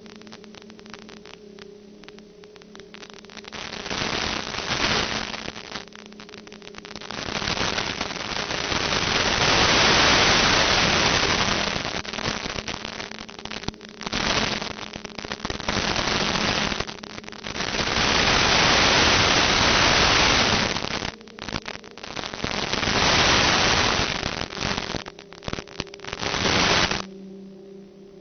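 Hiss and crackling static from the analog 2.4 GHz FPV video receiver's audio channel, over a steady low hum. It swells and fades every few seconds as the video link weakens and recovers, with sudden dropouts, and is loudest at the weakest signal.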